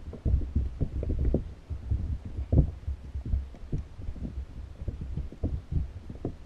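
Underwater audio from a GoPro in its waterproof housing: irregular, muffled low thuds and rumble, several a second, as water moves around the submerged camera.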